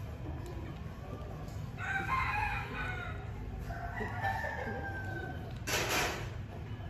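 A rooster crowing twice, each crow a pitched call of about a second and a half, followed by a short hissing noise near the end.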